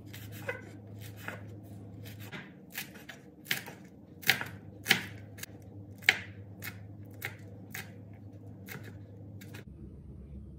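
A dimpled-blade kitchen knife chopping fresh green leaves and green chillies on a bamboo cutting board: about twenty quick, irregular knocks of the blade through the greens onto the wood, stopping near the end.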